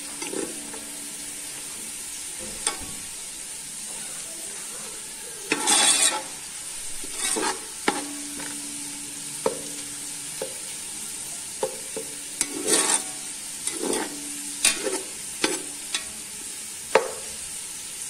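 Sliced onions frying in hot ghee in a metal pot, a steady sizzle, browned and near the end of their frying. A metal slotted spoon stirs them, scraping against the pot several times, loudest about five to six seconds in, with a few short taps.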